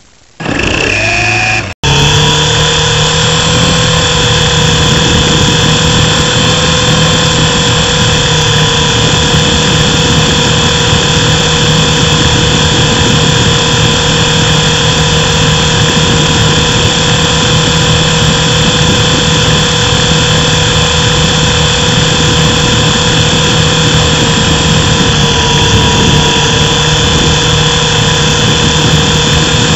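Mini RC helicopter's electric motor and rotor spinning up with a rising whine, then running steadily with a high whine. The pitch dips slightly near the end.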